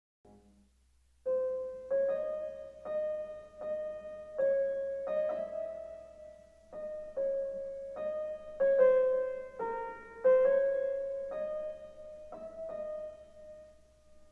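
Slow piano melody of single notes played one after another, each ringing and fading before the next, dying away near the end.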